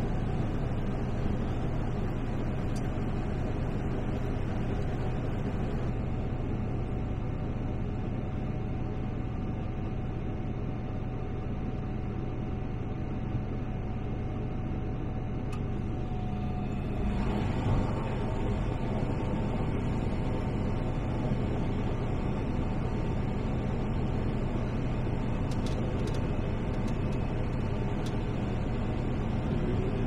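Combine harvester running, heard from inside the cab: a steady machine drone with a low hum. A little past halfway through, one of its tones steps slightly higher.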